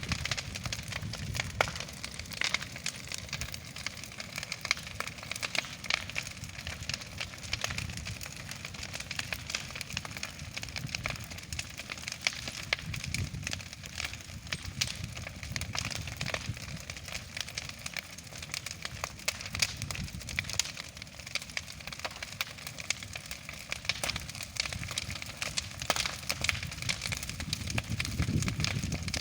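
Bonfire crackling and popping, a dense run of sharp cracks over a low, steady rumble.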